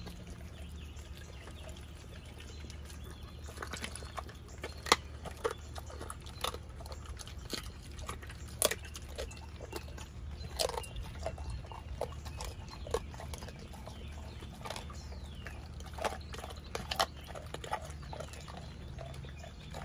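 A pit bull chewing a whole raw chicken: sharp crunches and cracks of bone at irregular intervals, over a steady low hum.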